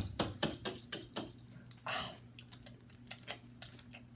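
An irregular series of light clicks and taps, several a second, with a brief rustle about two seconds in, over a faint steady hum.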